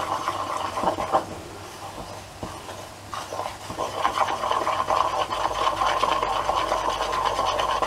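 Fingers mixing flour and milk into a batter in a bowl: a continuous rubbing and scraping with many small ticks, getting louder about three and a half seconds in.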